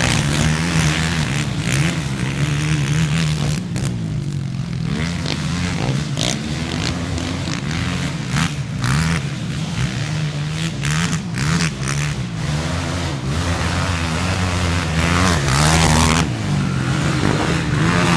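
Several 450cc single-cylinder four-stroke sport quads racing, their engines revving up and down through the gears. They grow louder in the last few seconds as they come close.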